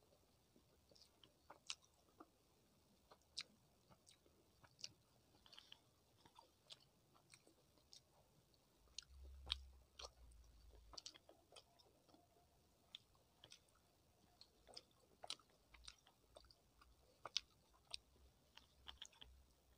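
Faint close-miked chewing of rice and fish curry eaten by hand: soft wet mouth clicks and smacks scattered throughout, with fingers squishing and mixing rice on the plate.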